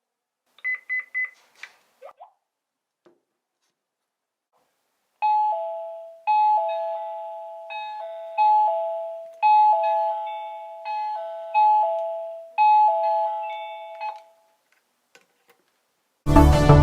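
DNAKE wireless doorbell beeping three short times, then its chime playing a two-note ding-dong, high then low, repeated about seven times over some nine seconds.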